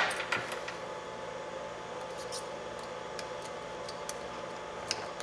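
Light, scattered clicks of pliers and a 1/8-scale buggy hub carrier being handled as the hub bearings are worked loose, over a steady low hum.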